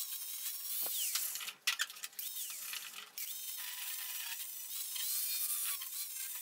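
Angle grinder with a sanding disc shaping a plywood axe handle, its motor whine dipping and rising in pitch as the disc is pressed into the wood. About a second and a half in, the whine breaks off briefly amid a few sharp clicks, then picks up again.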